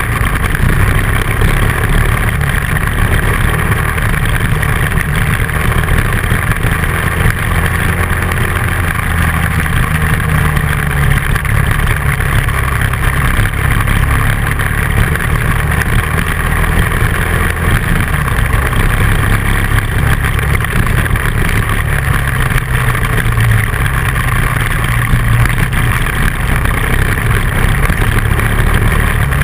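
Dual-sport motorcycle engine running at a steady cruise on a dirt road, heard from on the bike, with a constant rush of wind and road noise over it.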